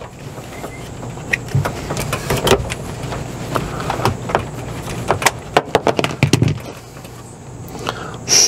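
Irregular clicks, knocks and rattles of plastic PEX tubing and a plastic water-line tee being handled and worked loose, with a low steady hum underneath and a louder sharp burst near the end.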